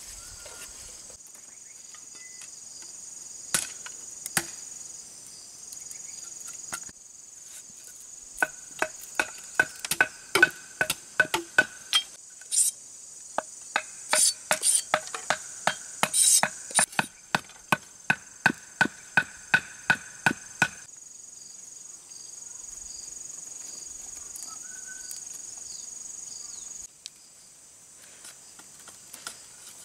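Insects chirring in a steady high drone. Through the middle, a run of sharp, ringing knocks on bamboo comes about two to three a second and stops suddenly.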